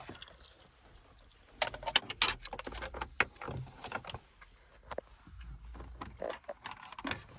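Small clicks and rattles of hands working plastic car interior trim and a charger cable, with a sharp clack about two seconds in.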